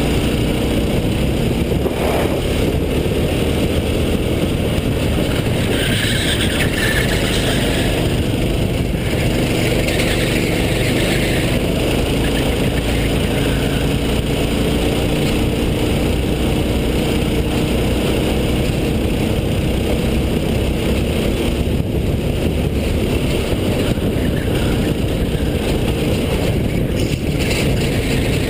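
Racing go-kart engine running hard on track, its pitch rising and falling as the driver works the throttle through the corners, under a steady rush of noise from the kart moving at speed.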